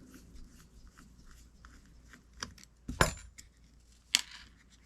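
Small metal parts and a tool clinking during disassembly of a Gomexus SX450L fishing reel: scattered light clicks, with two sharper metallic clinks about three and four seconds in.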